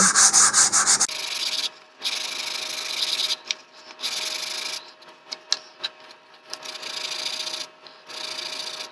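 Hand-sanding a square wooden model-rocket nose cone with 150-grit medium sandpaper on a sanding block: a rough rubbing scrape that comes in spells of a second or two with short pauses between them, and a few light clicks about halfway through.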